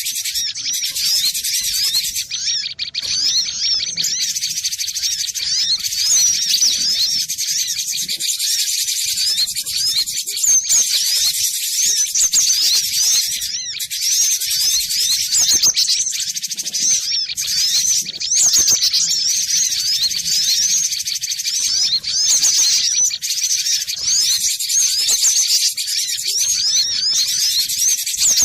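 Cinereous tit (glatik batu) singing: fast, high-pitched chirps repeated in dense, unbroken runs.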